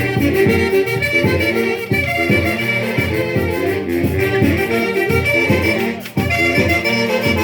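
Central Peruvian folk orchestra playing a lively tune, with violin and wind instruments over a steady beat.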